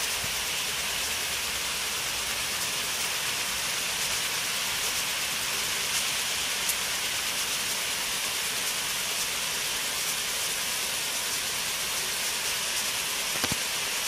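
Sprinkler irrigation heads spraying a fine mist of water over leafy saplings: a steady, even hiss.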